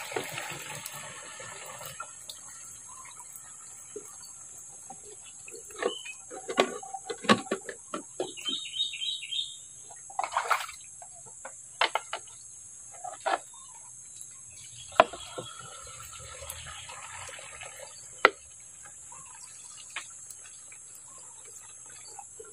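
Water poured from a small plastic jerrycan into the tank of a knapsack sprayer: a splashing trickle at the start and again about two-thirds of the way through. In between come splashes and knocks as the can is refilled on its rope.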